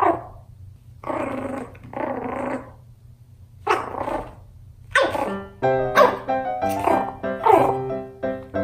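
Pomeranian puppy barking in short, high yaps in a play bow: one bark at the start, two short growls about a second and two seconds in, then a run of five yaps in quick succession. Cheerful background music with piano comes in past the middle.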